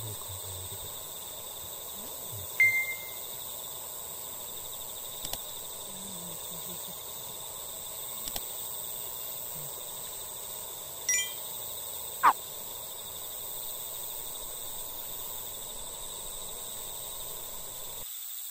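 Steady evening outdoor ambience, a continuous chorus of insects, with a few short high notes: one about two and a half seconds in, a couple around eleven seconds, and a falling one about twelve seconds in. The sound cuts off near the end.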